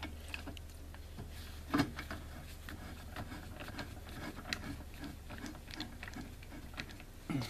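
Irregular light metal clicks and knocks as a clutch puller bolt is turned by hand in a snowmobile's water-filled clutch bore, with one louder knock about two seconds in. A low steady hum runs underneath.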